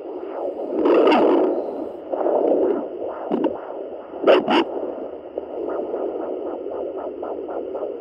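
Pocket fetal Doppler's loudspeaker playing a Labrador puppy's heartbeat in the womb at about 45 days of pregnancy: a whooshing pulse with fast ticking, the rate of a pup's heart rather than the mother's. Loud swooshes and scraping come through as the probe shifts on the belly, with two sharp knocks a little past four seconds in.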